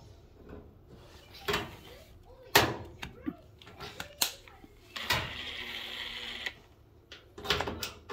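DeWalt Atomic 20V cordless impact driver running for about a second and a half, with a few sharp knocks and handling clatter around it, the loudest about two and a half seconds in.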